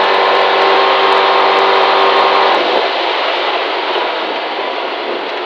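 Rally car at speed on a gravel stage, heard from inside the cabin: the engine holds a steady high note over the din of tyres and gravel, then the engine note drops away about two and a half seconds in, leaving the tyre and gravel noise.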